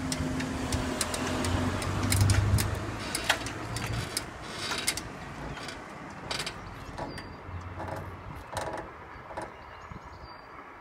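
Level crossing barrier arm with a hanging skirt being raised by its drive unit. A steady hum stops about two seconds in, then comes a low clunk and rumble as the arm comes upright, followed by scattered clicks and knocks that fade away.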